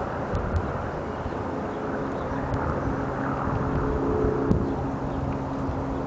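Steady hum of a vehicle engine, with a few separate sharp taps of a woodpecker pecking at the wooden utility pole, the clearest about two thirds of the way through.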